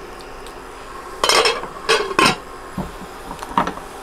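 A kitchen utensil clattering against the stoneware pot of a Crock-Pot slow cooker during stirring: three loud knocks in quick succession, then two lighter ones as the glass lid goes back on.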